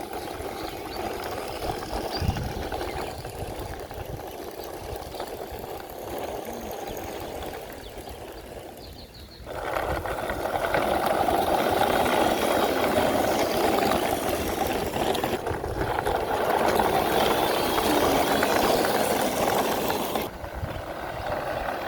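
A small motor running steadily. It gets louder suddenly about halfway through and drops back sharply near the end.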